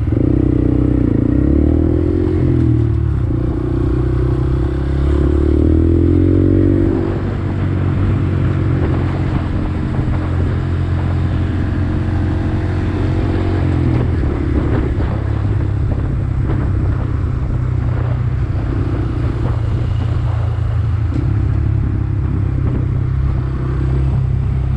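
Honda Grom's 125 cc single-cylinder engine running as the bike is ridden. The revs climb twice in the first seven seconds, louder, then it runs steadier and a little quieter.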